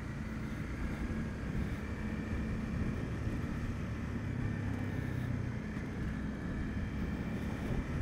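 Honda CB300F's single-cylinder engine running steadily while the motorcycle is ridden, with the even rush of road noise.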